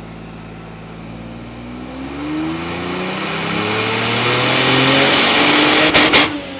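Mercedes SL600 V12 making a full-throttle dynamometer pull, revs climbing steadily and getting louder over several seconds. About six seconds in it breaks off with a couple of sharp cracks and the revs begin to drop.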